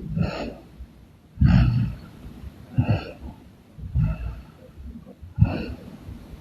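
A sleeping woman snoring, five rough snores about a second and a half apart.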